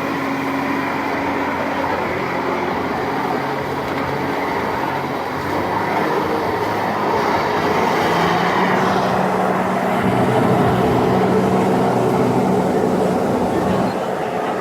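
A steady engine hum over a noisy rumble. The pitch steps up and the sound gets a little louder about eight seconds in.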